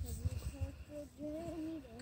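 A voice humming or singing a wordless tune, with held notes that glide between pitches, over a low uneven rumble.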